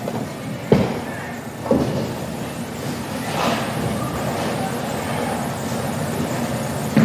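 Bowling ball dropped onto a wooden lane, knocking twice in the first two seconds, then rolling down the lane with a steady low rumble amid the alley's background din.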